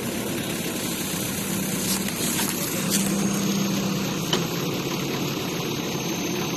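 Diesel engine of a JCB backhoe loader running steadily, with a few brief clicks partway through.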